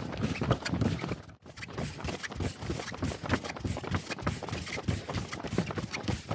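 Running footsteps on a tarmac road in a quick, steady rhythm of thumps, several a second, the sound dropping out briefly about a second and a half in.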